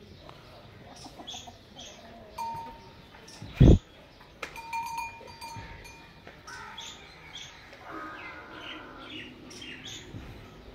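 Farmyard ambience: small birds chirping throughout, a loud low thump about three and a half seconds in, and a short livestock call around eight seconds in.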